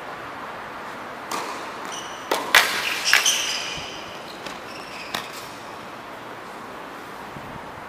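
Tennis ball hits and bounces on a hard court: a cluster of sharp pops about two to three and a half seconds in, mixed with short squeaks of shoes on the court surface, and one more pop about five seconds in.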